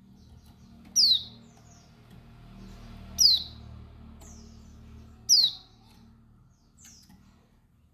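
Female white-eye (pleci, Bali yellow-breasted type) giving short, sharply falling chirping calls, three loud ones about two seconds apart with fainter calls between. This is the female's calling sound, used to provoke and excite male white-eyes.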